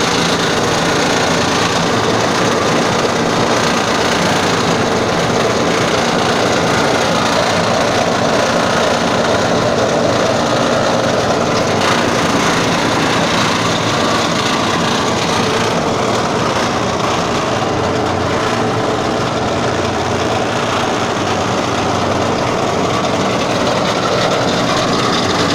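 Multifunction animal-feed chopping and mixing machine running steadily, a continuous loud mechanical din.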